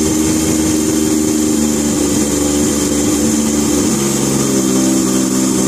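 Freshly rebuilt three-rotor rotary engine of a Mazda RX-7 FD3S idling steadily while its idle is set at the throttle body with a screwdriver; the idle note steps down about four seconds in.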